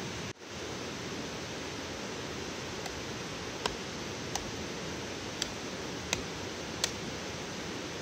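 Kindling sticks being split and snapped by hand: five or six short, sharp wooden cracks from about three seconds in, over a steady rushing hiss of forest ambience.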